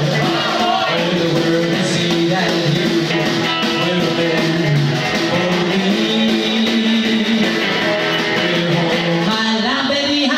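Live rockabilly band playing: a hollow-body electric guitar with drums, steady and loud.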